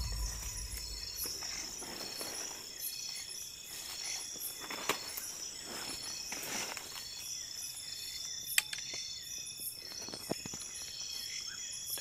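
Night insects trilling steadily in repeating pulsed chirps, with rustling of leaves and stems as someone walks through undergrowth, and one sharp tick about two-thirds of the way in.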